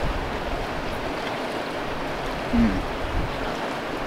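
Steady rush of a mountain river flowing over rocks, with a short low 'mmm' from a person chewing food about two and a half seconds in.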